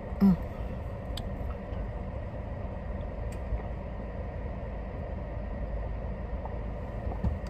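Steady low hum inside a parked car while a person drinks soda from a plastic bottle, with a few faint swallowing clicks and a brief vocal sound at the start.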